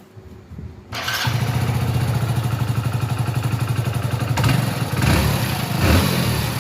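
Hero Splendor Plus BS6 motorcycle's single-cylinder engine starting about a second in and idling with a fast, even beat, then the throttle blipped twice near the end. The tappets have just been reset to cure a tik-tik noise, and the engine sound is now different.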